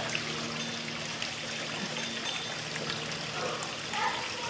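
Small waterfall running steadily over rocks into a garden pond.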